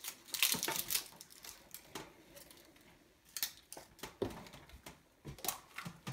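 A plastic surprise-egg capsule being handled and opened, giving irregular sharp clicks, taps and crinkly rustles, thickest in the first second.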